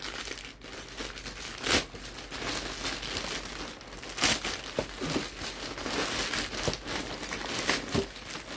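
Plastic courier mailer bag crinkling and rustling as hands pull it open and rummage inside, with a few louder sharp crackles.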